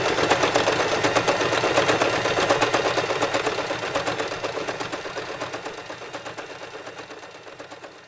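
Sewing machine running and stitching, a fast, even clatter of the needle mechanism over its motor hum. It fades out gradually over the second half.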